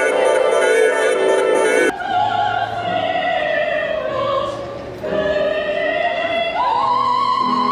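Background music for about two seconds, then a soprano singing opera: long held notes with vibrato, stepping up to a higher sustained note near the end.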